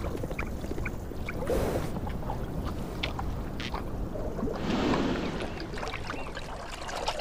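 A Namib wild horse drinking at a water trough, its muzzle in the water: soft sucking and gulping with small splashes and drips, a little louder about five seconds in.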